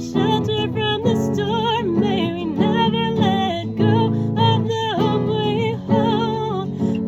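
Music: an acoustic guitar accompaniment under a wavering, vibrato melody line with no words, the instrumental close of a song.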